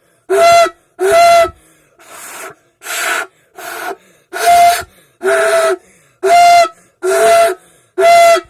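A person blowing and voicing into an empty drink can, about ten short loud blasts in a row, each a steady pitch with a breathy hiss. It is an attempt at a Lamborghini engine sound that comes out a bit like the sound of a slaughtered zebu.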